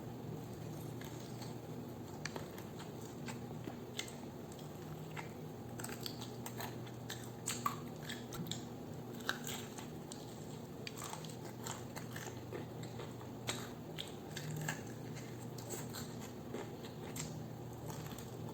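Crunchy fried chicken drumstick being bitten into and chewed: irregular crisp crunches and small clicks, over a faint steady low hum.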